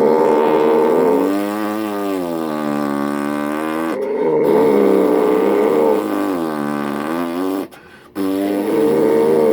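Loud, droning snoring that sounds like a weed eater: long, buzzing breaths of about four seconds each, one after another, with short breaks about 4 and 8 seconds in.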